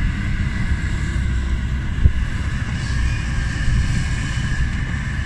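Kobelco SK200 hydraulic excavator's diesel engine running steadily as the machine swings and raises its bucket, with a steady whine over the low rumble. A single short knock comes about two seconds in.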